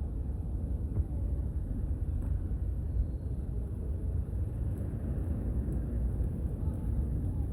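Steady low outdoor rumble with no distinct events, the kind of noise heard from open air or distant traffic.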